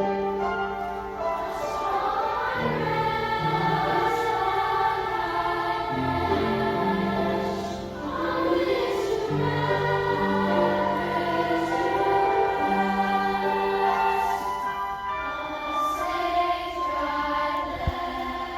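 A children's choir singing in parts with piano accompaniment.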